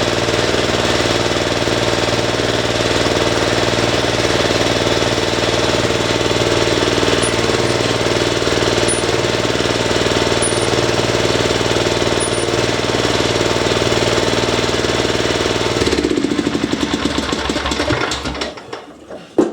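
MTD ride-on mower's engine running steadily, test-run after a fix for a screeching noise when put into gear. Near the end the sound changes and then dies away as the engine winds down.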